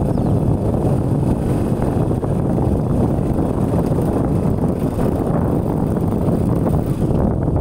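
Motorcycle running while ridden along a dirt track, its engine blended into a steady low rumble of wind buffeting the microphone.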